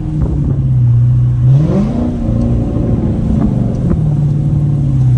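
Dodge Charger's exhaust with the mid-muffler deleted, droning steadily, then rising as the engine revs up about a second and a half in and dropping back near the end.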